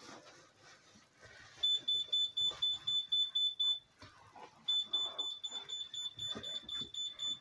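High-pitched electronic kitchen-appliance beeper sounding in rapid, even beeps, about five a second. One run lasts about two seconds, and after a short pause a longer run of about three seconds follows.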